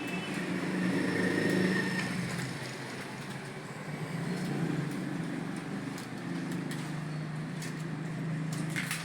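Low, steady rumble of road traffic, a motor vehicle's engine wavering slightly in pitch. A few scattered, faint clicks from computer keyboard keys being struck sound over it.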